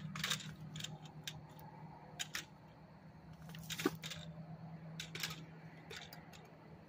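Scattered clicks, knocks and rustles of a salvaged, mostly plastic item being handled and picked up, with one sharper knock about four seconds in, over a low steady hum.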